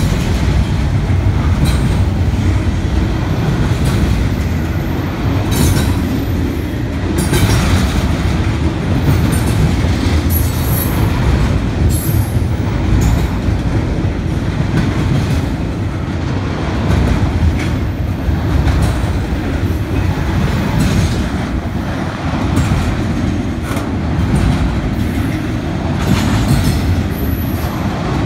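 Double-stack intermodal container train rolling past, its freight cars' wheels making a steady rumble with repeated clacks over the rail joints.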